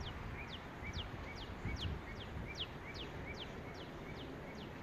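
A small bird calling over and over, a little over twice a second, each note a quick high whistle sliding steeply downward. A steady low rumble runs underneath.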